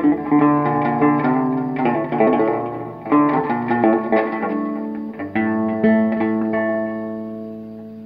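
Background music on plucked guitar: chords struck and left to ring, with a long fading chord near the end.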